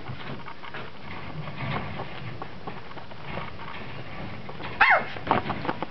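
Brittany puppies shuffling and scratching about in their pen, with small clicks and scrapes. About five seconds in, a puppy gives a short high yelp that falls in pitch, followed by a few brief squeaks.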